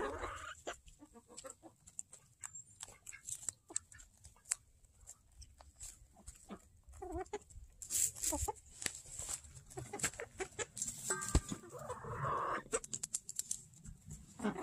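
Chickens pecking at feed close by, their beaks making many quick ticks, with a few clucks and a longer bout of clucking near the end.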